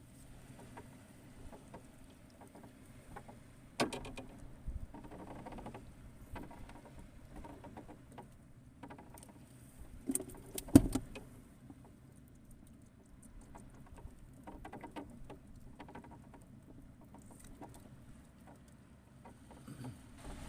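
Scattered light clicks, taps and rustles of handling, with two louder knocks, one about four seconds in and the loudest about eleven seconds in.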